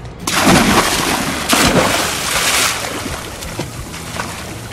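A person jumping into the sea beside a boat: a sudden loud splash about a quarter second in, a second burst of splashing about a second later, then water sloshing as it dies down.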